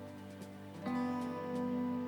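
Soft acoustic guitar background music, with a new held chord coming in just under a second in.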